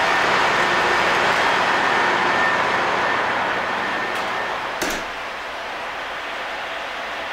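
Steady engine-room machinery noise on a container ship, then a door shuts with a single knock about five seconds in. After that the machinery is heard more quietly through the closed door.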